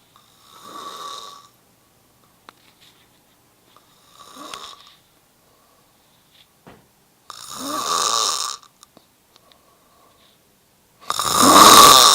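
A man snoring: four snores about three and a half seconds apart, each about a second long and each louder than the last.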